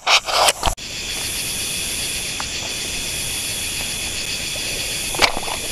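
Steady night chorus of crickets and other insects, a high buzzing whose topmost band breaks off for a moment now and then. A few knocks come in the first second, and one sharp click comes about five seconds in.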